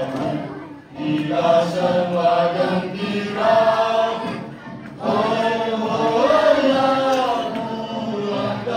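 A group of children singing a chant together in chorus, in phrases with a short break about five seconds in.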